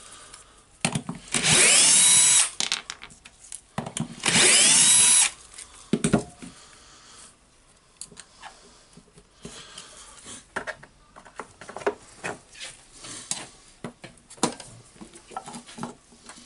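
Cordless drill-driver backing out the screws of a cap on a demolition hammer's housing: two runs, the first about a second and a half and the second about a second, each starting with a rising whine. After them come light clicks and knocks as the loosened cap is worked free with a screwdriver.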